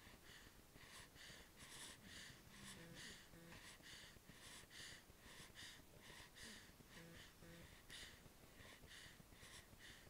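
Faint, quick, snuffly breathing of a sleeping newborn baby, short soft puffs coming two or three times a second.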